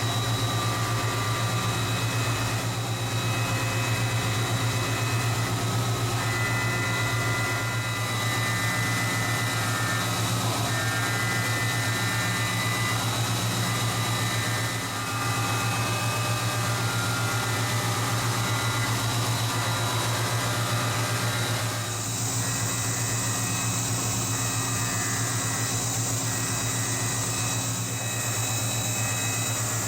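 CNC machining center running a cutting operation: a steady machine hum with several constant whining tones from the spindle and tool. About two-thirds of the way through, a high hiss joins.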